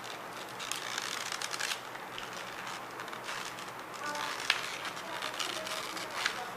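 Plastic clamshell packaging of a RAM stick crackling and clicking as it is pried open by hand, with a couple of sharper snaps about four and a half and six seconds in.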